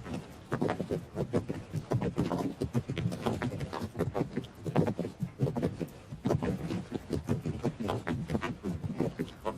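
Hoofbeats of galloping horses: a rapid, uneven run of dull thuds.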